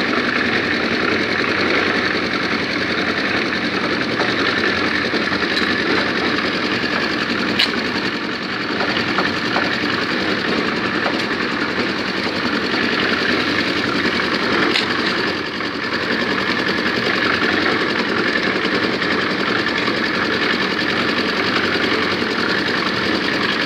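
Portable concrete mixer running, its drum turning and churning a wet mix of sand and cement as a steady mechanical noise. A short sharp knock sounds about eight seconds in and again about fifteen seconds in.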